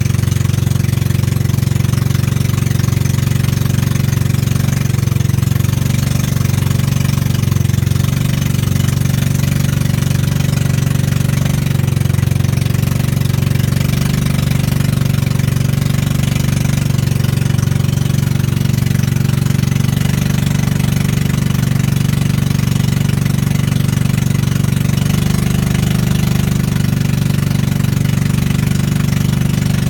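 Motorboat engine running steadily while under way, a constant low hum with the hiss of water and wind over it.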